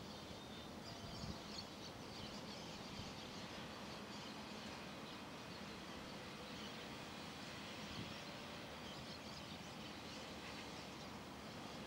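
Faint outdoor background noise with many scattered high chirps and a faint steady low hum underneath; no aircraft engine stands out.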